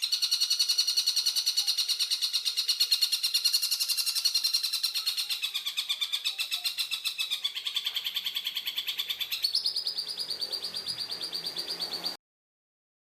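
Tengkek buto (a kingfisher) giving a long, harsh, rapid rattling call that runs on almost without a break. It dips in pitch midway, jumps a little higher near the end, and cuts off suddenly.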